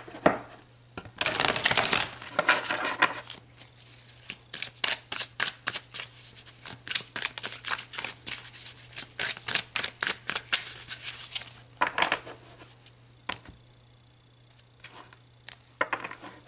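A tarot deck shuffled by hand. A second or two of continuous riffling rustle is followed by a long run of quick card flicks and snaps, several a second, which thin out to a few soft clicks near the end.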